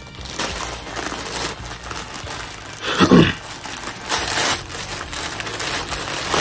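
Plastic poly mailer bag crinkling and rustling as it is handled and torn open by hand, with a short vocal noise about three seconds in.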